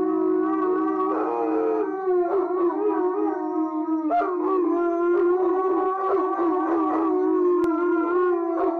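Dogs howling together in long, held notes that waver slightly in pitch, with several voices overlapping.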